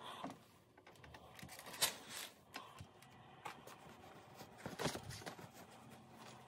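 Faint handling of a clothes iron and denim jeans on a towel: a few sharp light knocks as the iron is stood up on its heel and moved, with rustling as the stiff starched denim is smoothed and repositioned by hand.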